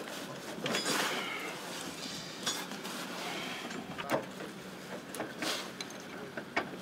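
Open-end wrench and metal hose clamps clinking and scraping while a clamp on an engine hose is tightened: a scattered series of short metallic clicks and knocks.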